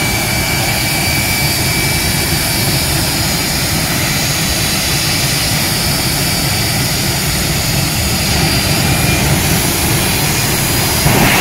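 Jet engine of the Bone Shaker jet truck running steadily at low power as the truck creeps forward, a loud rumble with a thin, high, steady whine over it. Right at the end it starts to grow louder.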